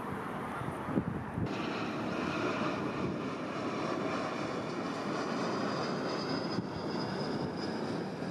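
Jet aircraft engines as a plane passes overhead: a steady rush with a high whine that comes in about a second and a half in and grows stronger toward the end.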